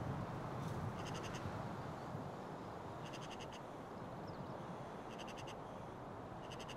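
Short trilled animal chirps repeating every two seconds or so, over a steady low hiss of outdoor ambience.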